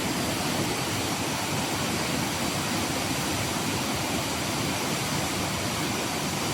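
Steady, unbroken rush of water from heavy rain and runoff, an even noise with no single events in it.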